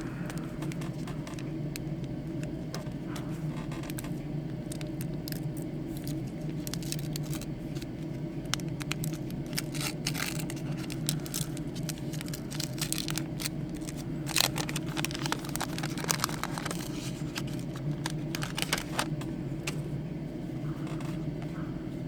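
Wax-paper wrapper of a resealed trading-card pack crinkling and tearing as it is opened, with scattered crackles and rustles that are thickest in the middle, over a steady low hum.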